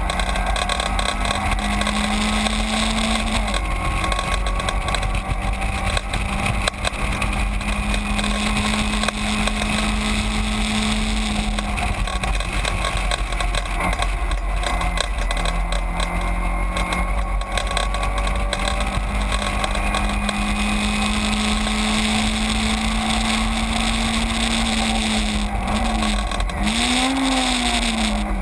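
In-car sound of a Caterham 7 race car at speed: its engine runs hard at high revs, holding a fairly steady note over constant wind and road rush. The note breaks and changes briefly about halfway, and near the end the revs fall and rise sharply several times.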